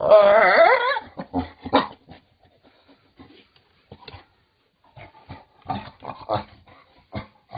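A dog vocalizing while its belly and fur are being rubbed. A loud cry wavering up and down in pitch fills the first second, then short, scattered vocal sounds follow.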